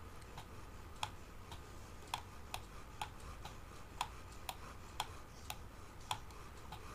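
Computer mouse button clicking, faint and irregular, about two clicks a second.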